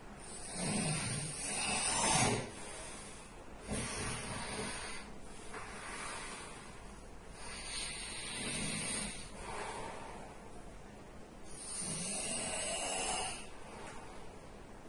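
A sleeping person snoring: about four slow breaths a few seconds apart, each a low rasping snore with a breathy hiss.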